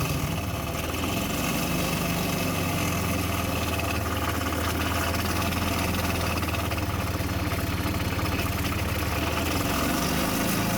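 Gas golf cart's single-cylinder four-stroke engine idling steadily just after starting, its note changing slightly near the end.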